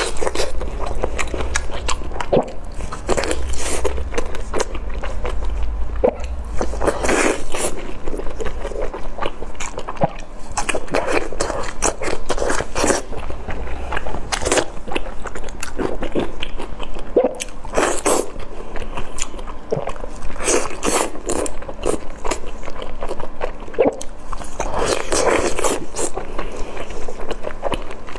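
Close-miked eating sounds: biting and chewing strips of chili-sauced pork, a steady stream of short mouth clicks and smacks.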